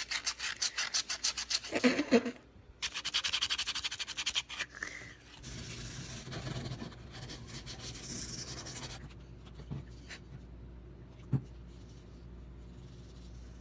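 Sandpaper rubbed by hand over a white oak spoon: fast, scratchy back-and-forth strokes in two spells over the first few seconds, then softer, steadier rubbing that dies down, with one sharp click near the end.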